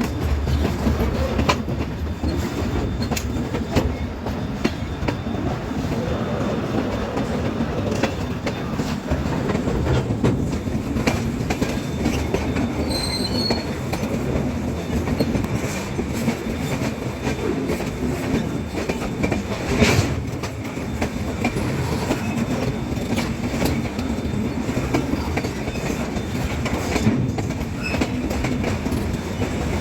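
Train running on the track: a steady rumble of wheels with irregular clicks over the rails. There is a brief high squeal about thirteen seconds in, and a sharp clack about twenty seconds in.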